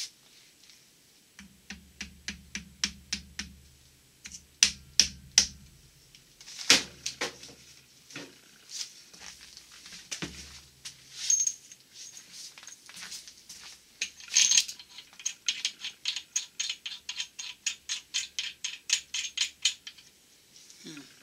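Metal clicks and light rattles from parts and tools being handled around an engine's rear main bearing cap, ending in a quick, even run of clicks at about four a second.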